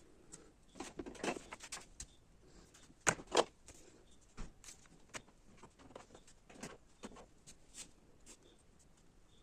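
Scattered clicks and knocks of something being handled and set down, with a cluster about a second in and two sharper knocks about three seconds in. No motor is running.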